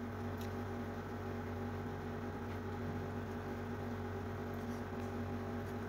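A steady hum with several held tones, of the kind a running household appliance makes, with a few faint ticks over it.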